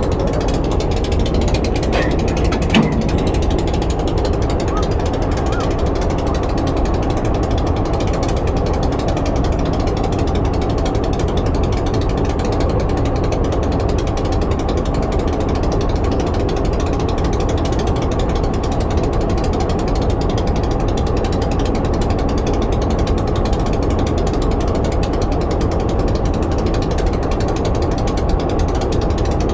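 Diesel locomotive engine idling close by: a loud, steady mechanical rumble. A couple of short metal clinks come about two to three seconds in.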